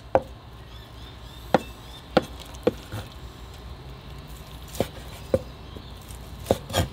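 A steel meat cleaver slicing through cooked beef brisket and knocking down onto a wooden cutting board: about eight short, sharp knocks at uneven intervals.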